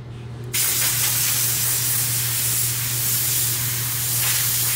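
Compressed-air blow gun on a red air hose, blasting a steady hiss of air that starts about half a second in, to blow a freshly ground wet glass piece dry. A steady low hum runs underneath.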